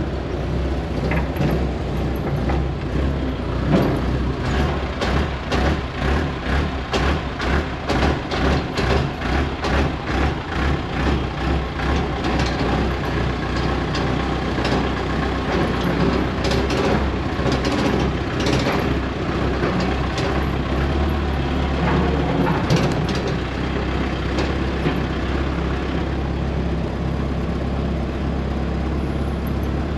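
Heavy diesel engine of farm machinery running, with an uneven pulsing for about the first half before it settles into a steady hum.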